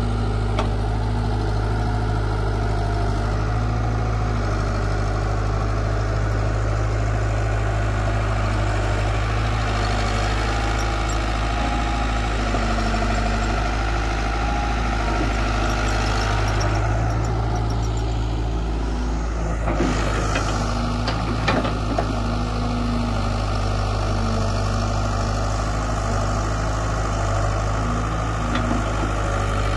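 Caterpillar 320B crawler excavator's diesel engine running steadily while it digs dry soil, with a few short knocks about twenty seconds in.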